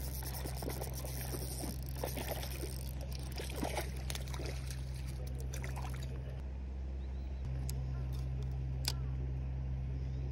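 Water splashing and trickling for about the first six seconds, then settling to a few small drips and clicks, over a steady low mechanical hum.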